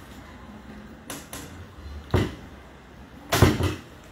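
A few scattered knocks and scuffs: two faint ones about a second in, a sharp louder one about two seconds in, and the loudest, lasting about half a second, near the end.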